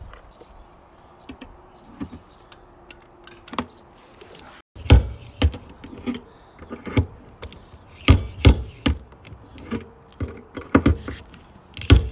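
Sharp, irregular taps and knocks: a few sparse ones at first, then louder and closer together after a short break about five seconds in.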